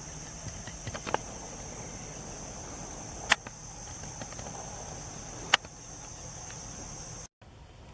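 Insects, crickets or similar, keep up a steady high-pitched trill in a wetland. Two sharp clicks stand out above it, a few seconds apart, and the trill cuts off suddenly near the end.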